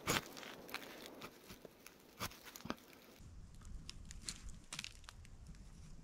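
Metal scraper scraping hardened pine resin and bark from a cut on a pine trunk: faint, scattered crunching scrapes and clicks, the loudest right at the start.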